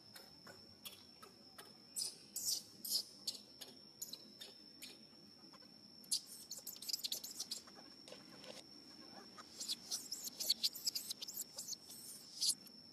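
Baby macaque squealing and screeching in short, high-pitched bursts, coming in rapid clusters: the distress crying of an infant wanting comfort from its mother.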